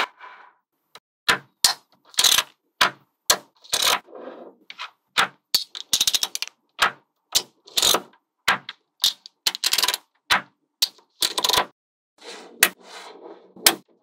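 Small magnetic balls snapping together one by one, sharp metallic clicks about once or twice a second, with a quick run of clicks about six seconds in. Softer rattling stretches, as of balls shuffling against each other, come about four seconds in and again near the end.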